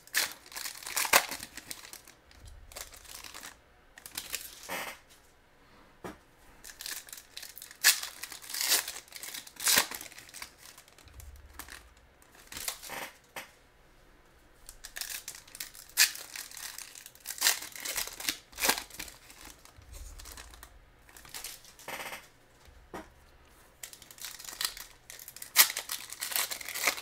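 Foil trading-card pack wrappers being torn open and crinkled by hand, in irregular bursts with short pauses between.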